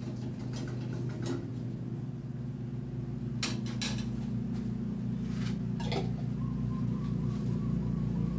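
A metal spoon clinking against a stainless steel bowl set in a double-boiler pot as cheese spread is spooned in, with about five sharp clinks spread through, over a steady low hum.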